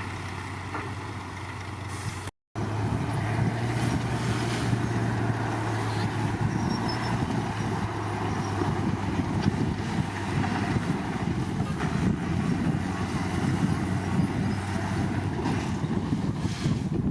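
Bulldozer diesel engine running steadily. The sound drops out for a moment about two seconds in, then the engine comes back louder and rougher.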